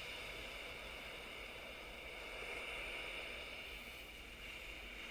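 Ocean waves washing in a steady hiss that slowly swells and eases, loudest a couple of seconds in.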